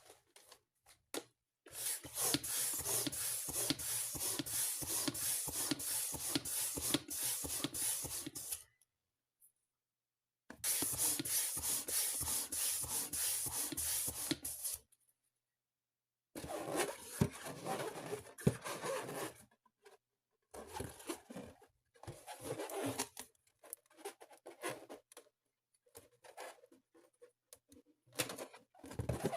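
Balloons being inflated and handled: two long stretches of rushing air, then irregular rubbing and squeaking of the balloon rubber.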